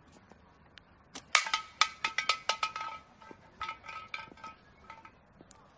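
A slingshot shot: a sharp snap about a second in. It is followed by a rapid run of metallic clinks that ring at the same pitch each time, thinning out over the next four seconds.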